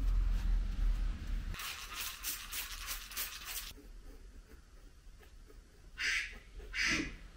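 Hand rubbing and scrubbing at a stain on a cloth: about two seconds of quick rubbing strokes, then single hissy strokes a little under a second apart near the end. A low steady hum stops about a second and a half in.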